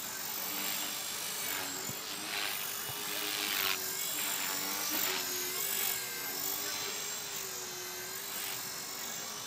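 HK-450 electric RC helicopter flying overhead: the steady whine of its motor and rotor blades, the pitch wavering a little as it manoeuvres, with a louder rush of blade noise partway through.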